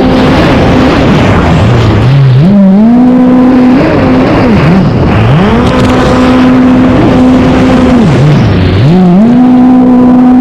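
A loud engine revving over and over: its pitch climbs, holds high for a couple of seconds, then falls back to a low idle, about four times.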